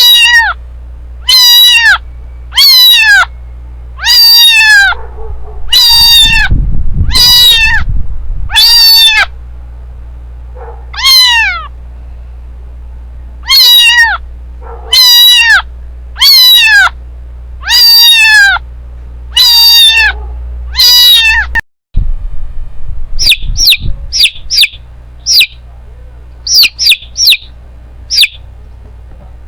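A kitten mewing over and over, about fourteen calls that each fall in pitch, with a steady low hum behind. About 22 s in it gives way to short, high bird chirps in quick clusters.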